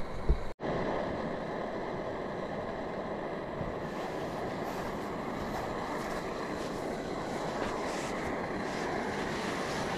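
Steady, even rushing noise of a small camping gas stove burning under a kettle that is steaming, after a short knock at the very start.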